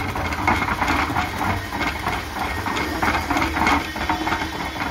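Electric concrete mixer running: a steady low motor hum under a dense, irregular rattling clatter.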